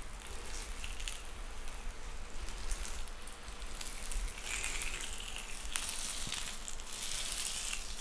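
Fat cap of a T-bone steak sizzling against a hot flat-top griddle as it renders, with scattered small crackles; the sizzle gets louder about halfway through.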